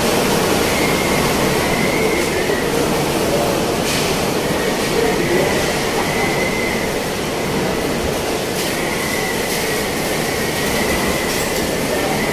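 Typhoon wind rushing steadily outside, heard from inside a building's lobby, with a thin high whistle that comes and goes. Two brief clicks land about four and nine seconds in.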